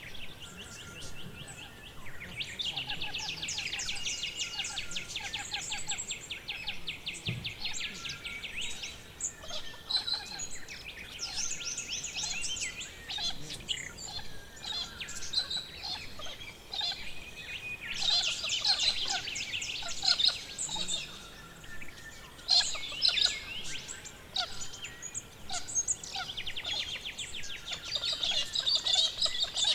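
Several forest birds singing: a long, rapid, high trill for several seconds, then a run of varied chirps and short whistles, and another rapid trill near the end.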